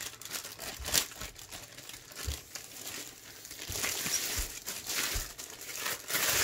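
Clear plastic wrap around a rolled diamond painting canvas crinkling and rustling as it is handled and unwrapped. Scattered sharp crackles build to a denser rustle in the second half.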